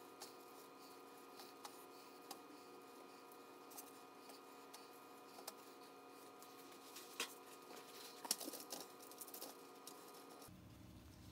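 Near silence with a faint steady hum, broken by light taps as fried potato strips are set down one by one on paper towels. About seven seconds in come sharper clicks and crinkling as a paper towel sheet is laid over the fries and pressed down to soak up the oil.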